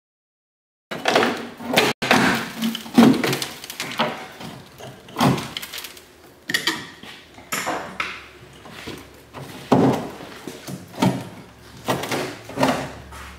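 Rusty steel fuel filler neck clunking and scraping against the car's body as it is worked loose by hand and pulled out: a series of irregular knocks starting about a second in.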